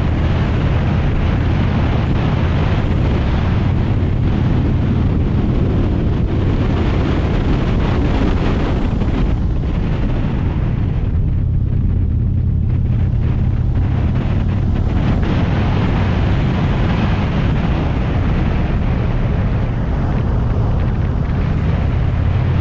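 Motorcycle engine running steadily at cruising speed, under heavy wind rush on the microphone; the wind eases for a moment about halfway through.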